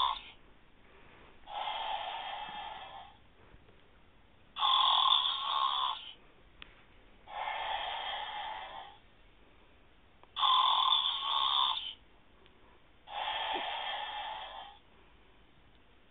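Snoring in an even rhythm: a louder, harsher snore and a softer one take turns, each lasting about a second and a half, with a full breath roughly every three seconds.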